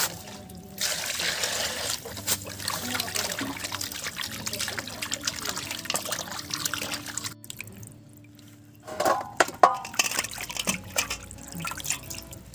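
Hands sloshing and rubbing raw pork pieces in a steel bowl of water, with splashing and trickling. After a break, there is a short burst of louder clatter about nine seconds in.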